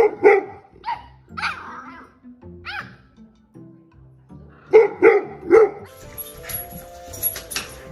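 A dog barking and vocalizing in short calls, several of them bending up and down in pitch, with three loud barks in quick succession about five seconds in.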